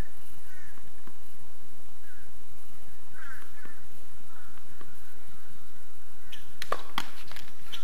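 Birds calling again and again in the background, then near the end a few sharp pops in quick succession as a tennis ball is served, bounces on the hard court and is struck by a racquet.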